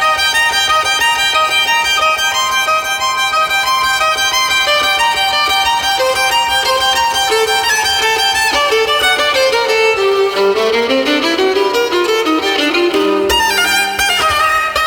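Solo violin playing a fast passage of many quick notes. About ten seconds in, a run climbs up from the instrument's lowest notes, and near the end a low note is held beneath the higher ones.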